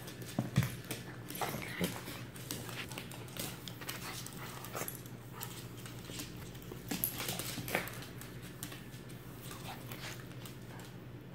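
A Lhasa Apso and a Shih Tzu play-wrestling: dog noises with scuffling and many short clicks and knocks of paws and claws on the parquet floor, loudest about half a second in and again around seven to eight seconds in.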